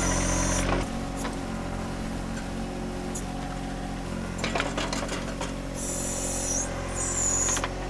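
John Deere 1025R compact tractor's three-cylinder diesel running steadily while its 260 backhoe digs a trench. The engine eases off a little under a second in, and the bucket knocks and scrapes in the dirt about four and a half seconds in.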